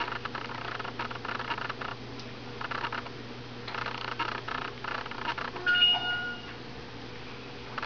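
22-day-old standard poodle puppies suckling at their mother: runs of quick smacking clicks, with one short, steady, high squeak from a puppy about six seconds in, the loudest sound.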